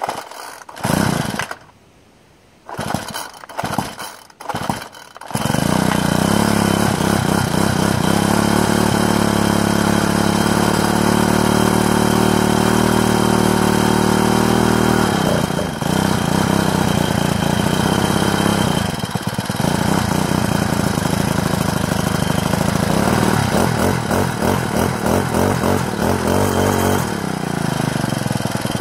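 Troy-Bilt four-stroke brushcutter being pull-started after sitting unused for a long time: a few short pulls on the starter cord, then the engine catches about five seconds in and runs steadily. Its speed dips twice in the middle and it runs unevenly near the end.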